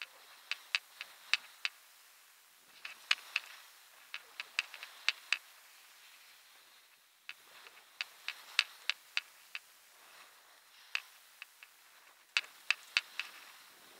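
Downhill skiing on a snowy piste: a faint hiss of skis on snow that swells and fades, broken by clusters of sharp clicks, several a second, coming in bursts every few seconds.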